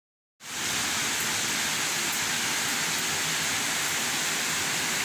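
Heavy rain falling steadily, an even, unbroken rush that starts about half a second in.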